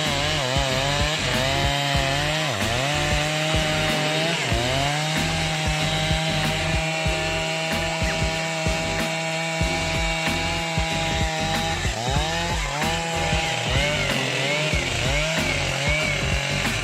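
Two-stroke chainsaw running at high revs while cutting wood. Its engine note dips and recovers several times as the chain works through the cut.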